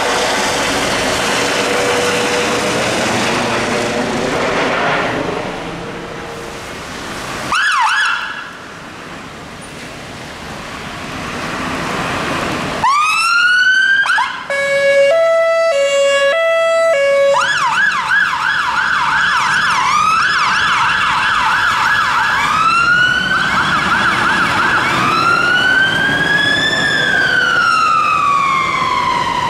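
An air ambulance helicopter's rotor and turbine noise, which fades away. Then a fire engine's electronic siren starts with a rising wail, switches to a two-tone hi-lo, then a fast yelp, and then slow rising-and-falling wails.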